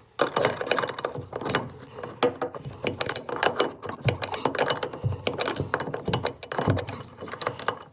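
Metal hand tools clinking and rattling against the plumbing fittings of a sink's water supply line, a dense run of irregular clicks and knocks while the old connection is worked on.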